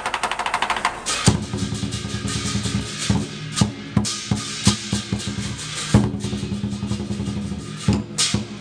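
Large Chinese lion-dance drum being played: a fast, even roll of light taps for about the first second, then dense, loud drumming with heavy accented strokes.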